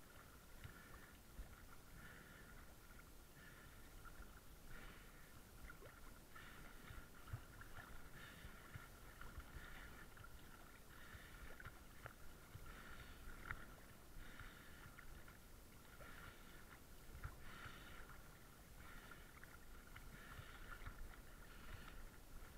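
Faint, muffled water lapping and sloshing against a floating camera's waterproof housing, in uneven pulses every second or so.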